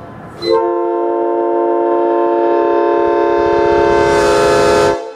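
Multi-chime locomotive air horn blown on compressed air: one long blast of a steady several-note chord, starting about half a second in. It grows brighter toward the end and then cuts off sharply.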